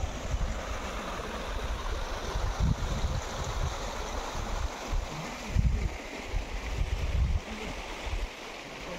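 A shallow stream running over stones makes a steady hiss, and wind buffets the microphone in low gusts that ease off near the end.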